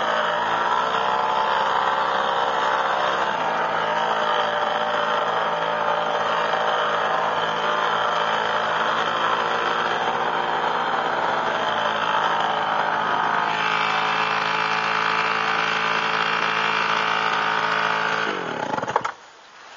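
Twin Gamefisher air-cooled two-stroke outboard motors running steadily at full speed, then winding down and dropping away about a second before the end.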